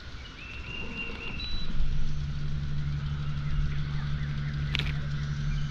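Bow-mounted electric trolling motor humming steadily, starting about a second and a half in. Short high chirps sound near the start, and a sharp click comes near the end.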